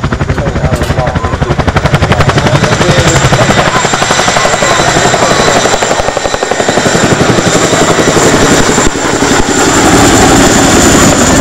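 Boeing CH-47 Chinook tandem-rotor helicopter flying close by as it lifts and climbs away: a rapid, even beat of the rotor blades over a steady high turbine whine, growing a little louder near the end.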